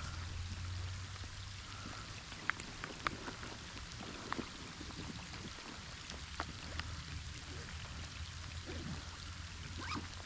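Creek water running: a steady trickle with scattered small ticks and splashes.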